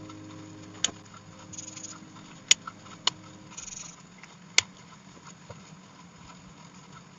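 Sharp plastic clicks, five in all, with two short rustles between them, from handling the markers and their packaging. Faint held tones of background music fade out under the first half.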